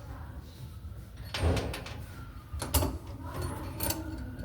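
Handling noise from work on a washing machine: a low rumble with three separate clunks or knocks, a second or so apart.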